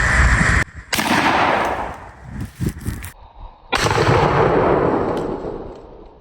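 Single-shot shotgun firing a light 8 shot target load, heard twice, about a second in and again past the middle. Each blast starts suddenly and fades away over a second or two.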